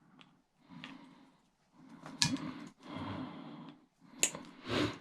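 Hand tools and parts being worked while stripping a small heater for scrap: sharp clicks and snaps with scraping and rattling between, the two loudest clicks about two and four seconds in.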